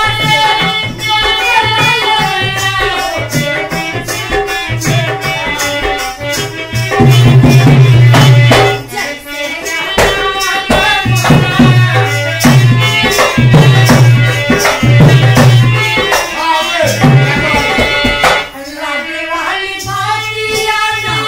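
Indian dance song with tabla drumming and a singing voice, with a heavier low beat through the middle.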